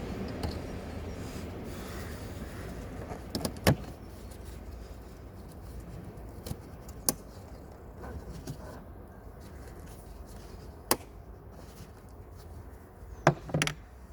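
Mercedes OM651 diesel engine idling, a steady low hum, with several sharp clicks and knocks on top: a cluster about a third of the way in, single ones later, and a pair near the end.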